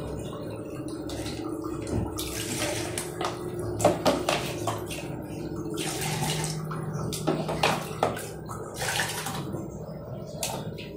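Water splashing and being poured by hand from a small plastic mug while a wet shirt is washed on a tiled floor, in several short irregular splashes, with a faint steady hum underneath.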